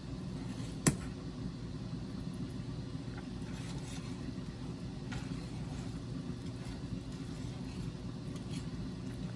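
Wire whisk stirring shredded cheddar into a milk sauce in a stainless steel saucepan, with a few light scraping taps and one sharp clink against the pan about a second in, over a steady low hum.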